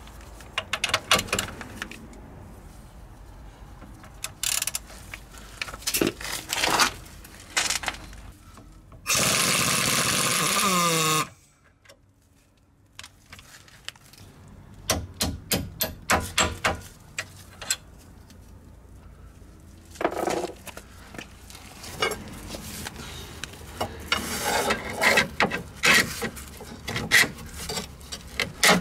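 Metal tools clinking and knocking on a Peugeot 206's front suspension as the lower ball joint is freed from the hub carrier. About nine seconds in, a power tool runs for about two seconds, its pitch falling as it stops.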